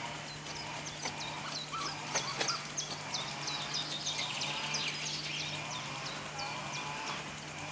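Small birds chirping and singing outdoors, a quick run of short high calls again and again, over a steady low hum.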